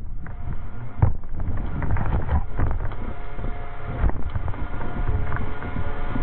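Onboard microphone of a brushless RC car (JLB Cheetah frame) tumbling: irregular knocks and low rumble as it rolls over and comes to rest on its side. From about three seconds in, a steady whine with several tones runs on.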